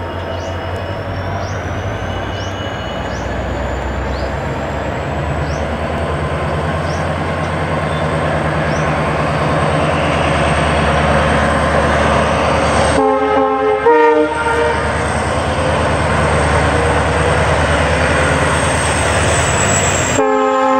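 Indian Railways passenger coaches rolling slowly past on the rails with a steady rumble that grows louder as the WDP4D diesel locomotive at the rear draws near. A multi-note train horn sounds for about a second and a half a little past the middle, and again near the end.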